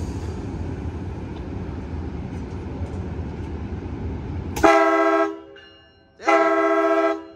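Low steady rumble of an Amtrak passenger train rolling slowly into the station, then two blasts of the multi-note horn on its leading cab car. The second blast starts about a second and a half after the first and is longer.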